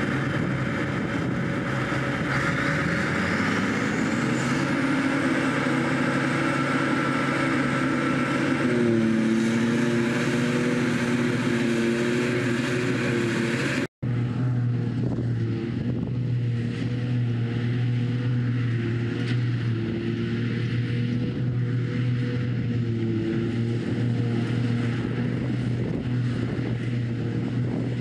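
Claas Jaguar 900 self-propelled forage harvester and a Fendt Vario tractor with its silage wagon running steadily while chopping grass, a loud continuous engine drone with a deep hum. The engine note shifts a little about nine seconds in, and the sound drops out for a split second halfway through.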